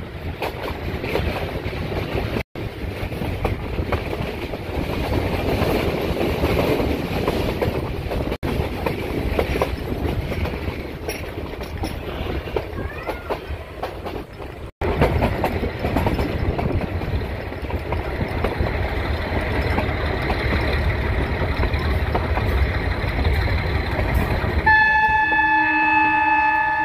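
Train running along the track, a steady rumble of carriage and wheel noise. Near the end a horn starts up and holds a steady chord.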